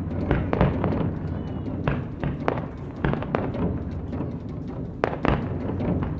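Live Japanese taiko drums being struck: heavy, sharp drum hits at an uneven rhythm, about ten in six seconds, over a continuous low drum rumble.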